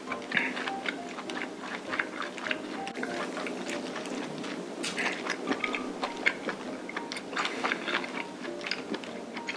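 Close-up mukbang chewing of saucy stir-fried webfoot octopus: irregular wet, sticky mouth clicks and smacks. Light background music plays underneath.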